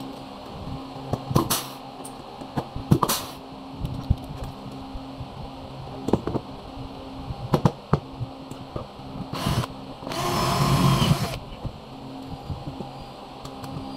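Blind rivets being set in an aluminium cabinet frame: several sharp snaps and short bursts from the rivet tool, then a louder power-tool burst lasting just over a second a little past the middle, over a steady machine hum.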